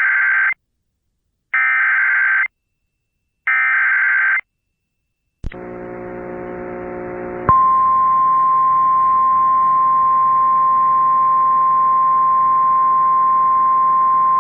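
Emergency Alert System SAME header: three one-second bursts of shrill digital data tones with short gaps. After a click and about two seconds of quieter humming, the steady single-pitch 1050 Hz National Weather Service warning tone starts about seven and a half seconds in and holds, with a faint hiss from the broadcast under it.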